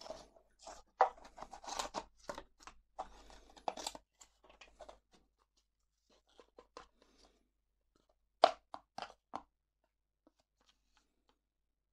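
Thin clear plastic tubs and lids being handled, crinkling and crackling for the first few seconds. After a pause come three sharp plastic snaps in quick succession.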